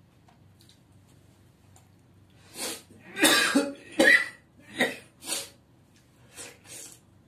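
A man coughing in a short fit of about six coughs, the loudest in the middle, tailing off into two fainter ones near the end.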